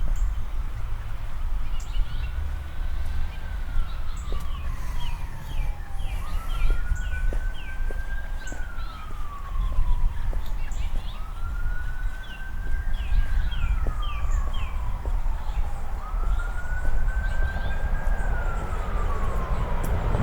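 Emergency-vehicle siren on a slow wail, four times: each wail rises, holds, then falls over about five seconds. A bird calls twice in quick runs of short falling notes, over a steady low rumble.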